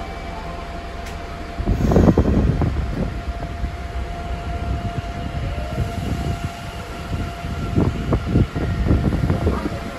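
Nagoya Municipal Subway 6000-series train heard from inside the car as it pulls out of a station. Its rumbling running noise rises sharply about two seconds in, and a faint rising motor whine comes in as it gathers speed.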